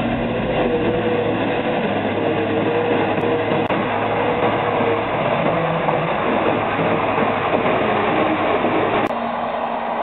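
Diesel engine of a Tatra three-axle dump truck running steadily under load as it drives through deep mud, a dense rumbling drone. About nine seconds in, the low rumble drops away and a thinner, steadier engine note takes over.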